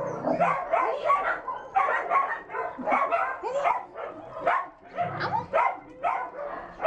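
A dog whining and yipping in a rapid run of short cries, worked up over a cat hidden in a hole in the floor.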